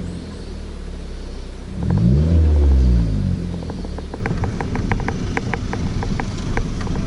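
Suzuki Swift Sport ZC31S's 1.6-litre four-cylinder engine running, blipped once to rev up and back down, then a rapid, irregular ticking sets in over the engine note. It is the abnormal engine noise that the owner puts down to a failing part on the belt drive.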